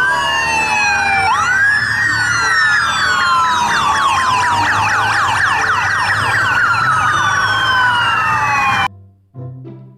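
Electronic siren with several wailing tones layered over one another. It breaks into rapid falling sweeps in the middle, slows back to a wail, and cuts off suddenly about nine seconds in.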